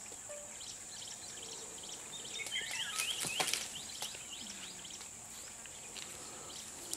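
Forest ambience: a steady high-pitched insect drone with birds chirping over and over. About three seconds in, a brief flurry of bird calls comes with a few sharp snaps.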